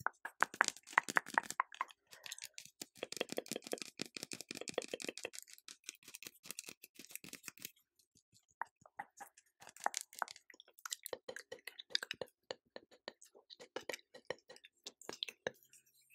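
Close-miked ASMR trigger sounds: dense runs of soft, wet clicks and crackles, thick for the first five seconds, then sparser, with a short lull about eight seconds in.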